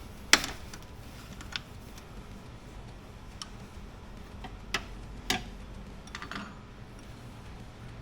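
Scattered sharp clicks and clinks of hand tools and metal parts being handled on the engine, about half a dozen, the loudest just after the start, over a low steady hum.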